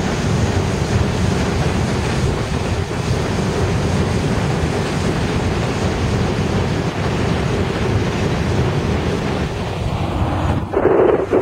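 New York City subway train of R46 cars rolling slowly past, a steady low rumble mixed with wind noise on the microphone. The sound jumps louder about ten and a half seconds in.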